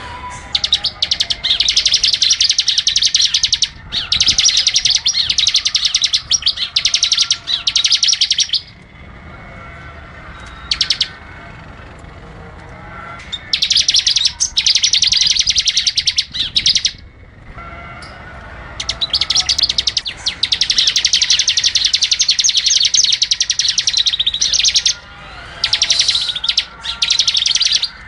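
A small songbird singing long, fast, high-pitched chattering trills. The phrases last from two to six seconds and are broken by short pauses, with a longer gap about halfway through.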